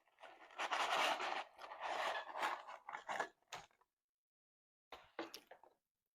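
Close-miked eating noises: biting, chewing and food handling in dense bursts for about three and a half seconds, then a few short clicks near the end.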